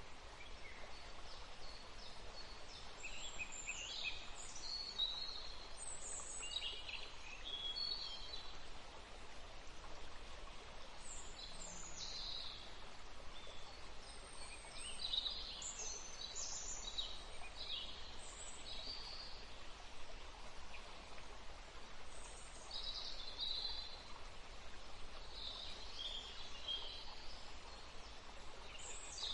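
Birds chirping in many short, high-pitched calls scattered throughout, over a steady background hiss.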